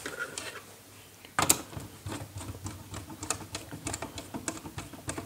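Small screwdriver working the brass terminal screw of a plastic electrical switch to clamp a wire: a run of light, irregular clicks and scrapes, with one sharper knock about a second and a half in.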